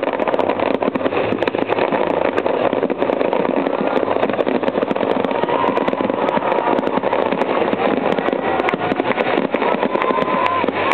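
Fireworks display going off in a dense barrage: many sharp cracks and crackling bursts over a continuous loud wash of noise.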